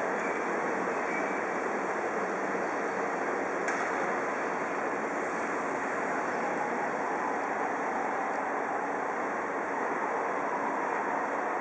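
Steady hiss of steam escaping from a standing DR Class 23.10 steam locomotive.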